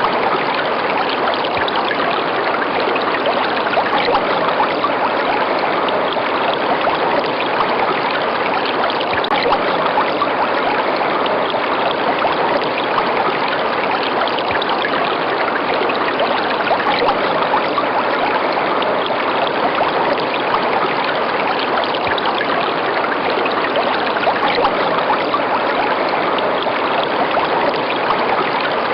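Running river water: a steady, even rush that never pauses or changes.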